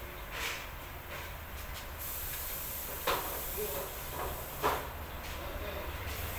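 A few short knocks on an aluminium door frame as it is handled, three in all, the loudest about four and a half seconds in, over a steady background hiss and low rumble.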